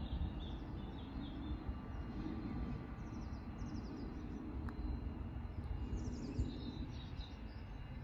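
Outdoor birdsong: small birds chirping in short runs of quick notes, several times over, above a steady low rumble.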